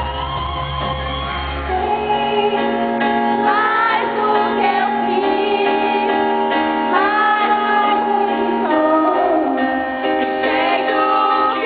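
A band playing a pop-rock song, with a singer's voice gliding over held chords.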